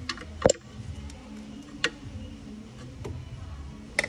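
A few short, sharp clicks and knocks, the loudest about half a second in, over a low steady hum.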